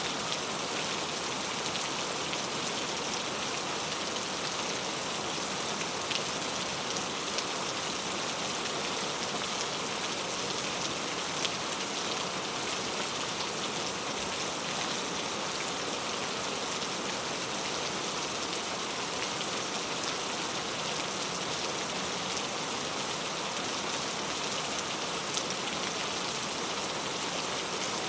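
Steady rain falling, an even hiss with a few slightly louder drop taps now and then.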